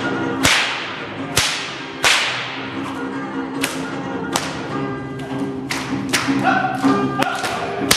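A Hungarian herdsman's whip (karikás ostor) cracking again and again: about ten sharp cracks, roughly one a second, over background music.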